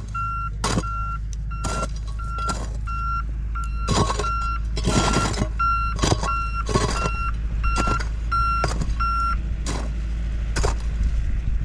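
A hoe chopping and scraping into red clay soil, a sharp strike about once a second, while a vehicle's reversing alarm beeps about twice a second and stops near the end, over the steady low rumble of a tractor engine.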